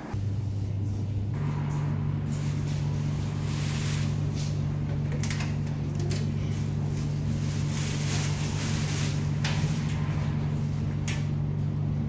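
Steady low electrical hum of laundrette machines running, with a second tone joining about a second and a half in. Over it come scattered clicks and rustles as clothes are loaded into an open front-loading washing machine.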